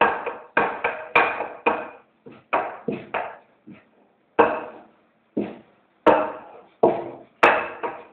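Simit dough being worked by hand on a work table: a run of sharp knocks, roughly two a second and unevenly spaced, each dying away quickly.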